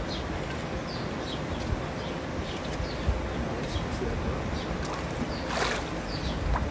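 Pool water sloshing around wading legs, with a louder splash about five and a half seconds in. Small birds chirp repeatedly in the background, short falling chirps about twice a second.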